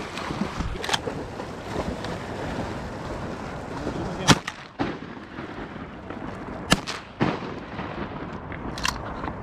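Shotgun shots: one loud report about four seconds in, then two more close together about two and a half seconds later.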